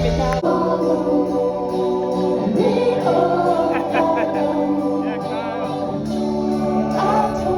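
Music with singing voices over held chords.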